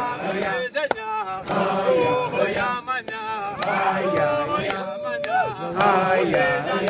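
A group of Tanzanian mountain porters and guides chanting and singing together in a welcome song, with a few sharp claps.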